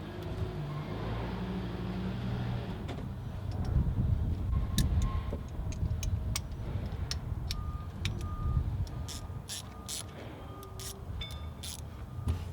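Sharp metallic clicks and taps of hand tools tightening cable connections, over a low rumble. About two-thirds of the way in, a high electronic beep starts and repeats about twice a second.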